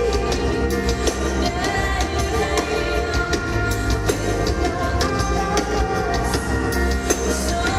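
A live rock song: a woman singing over a band, with drums and bass keeping a steady beat.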